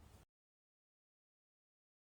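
Near silence: faint low room noise that cuts off completely a moment in, leaving dead digital silence.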